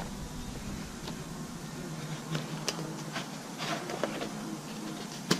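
Cardboard being cut and handled: a few light scrapes and rustles and a sharp click near the end, over a steady low hum.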